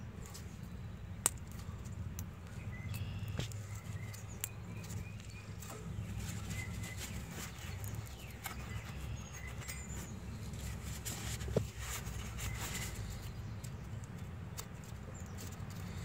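Quiet outdoor background of a steady low rumble with birds chirping faintly, broken by a few light clicks and taps as the brake caliper and its greased slide pin are handled and refitted.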